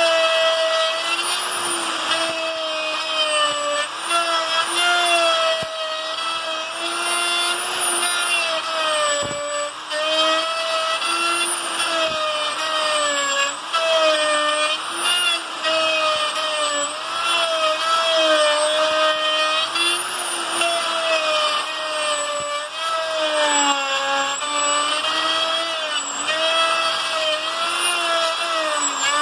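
Wonder plunge router with a dovetail bit, running at high speed while surfacing a rough wooden slab. Its motor whine sags and recovers in pitch over and over as the bit bites into the wood.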